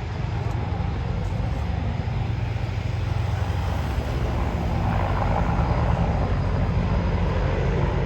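Display aircraft flying past: a steady low engine rumble that grows louder in the second half.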